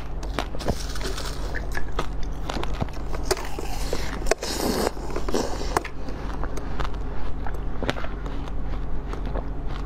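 Close-up biting and crunching of frozen food: sharp crackles and clicks as the teeth break through it, with a denser crunch about halfway through. A steady low hum runs underneath.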